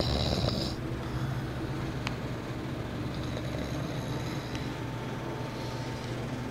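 A pet snoring: a steady, low rumble.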